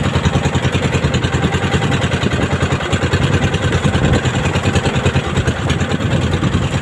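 Small engine on a wooden outrigger fishing boat running steadily with a rapid, even putter.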